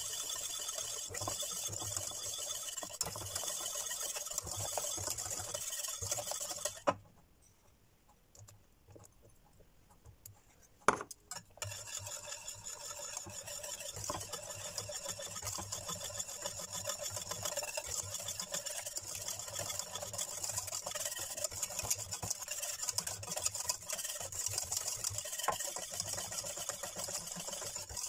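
Wire whisk beating thick lemon curd in a stainless steel saucepan, the wires scraping quickly and steadily against the pan as butter is whisked in to melt. The whisking stops for a few seconds about seven seconds in, broken by one sharp knock, then carries on.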